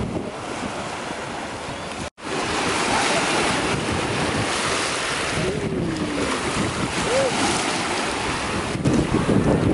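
Small waves washing onto a pebble shore, with wind buffeting the microphone, stronger near the end. The sound drops out for a moment about two seconds in.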